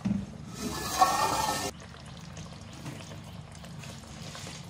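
Aluminium pot lid lifted off a pot of simmering curry: a scraping, ringing clink of metal on the pot's rim, loudest about a second in, which stops suddenly.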